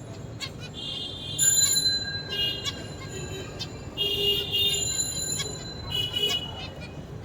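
Zebra finch singing: short phrases of pitched, nasal notes, the loudest about a second and a half in and again about four seconds in, with faint clicks between the phrases.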